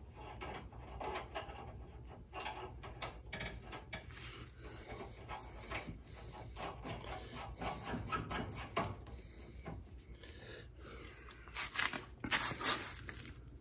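Irregular small metal clicks, knocks and rubbing as a John Deere L130's tie rod end is worked onto the front spindle arm by hand, with a burst of louder clatter near the end.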